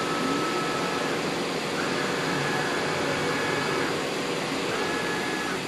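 DMG DMU 50 T machining center's axis drives whining as the spindle head traverses: a high tone rises, holds for about one to two seconds and falls away, three times, over a steady hum of running machinery.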